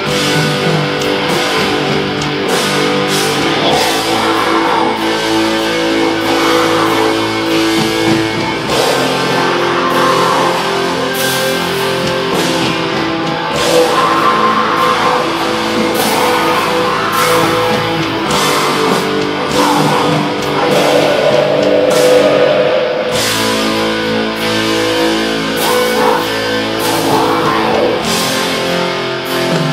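Live black metal band playing loud distorted electric guitars over a drum kit, with crashing cymbals throughout.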